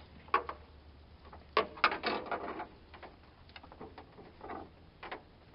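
Rubber upper radiator hose on a Jeep Cherokee XJ being twisted and pulled off its fitting by gloved hands: a string of sharp clicks, creaks and knocks, busiest about two seconds in, with smaller ones after.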